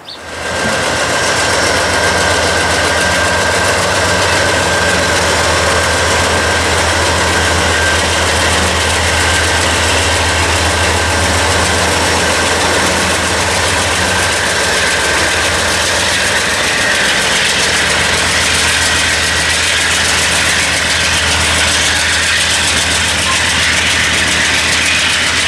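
Norfolk Southern AC44C6M diesel-electric locomotives passing close by: a loud, steady low engine drone with a thin high whine over it. The drone eases for a few seconds about midway and comes back as the next unit passes.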